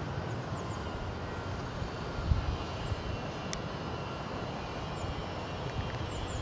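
Steady low background rumble, with a few soft low thumps and some faint, short high chirps.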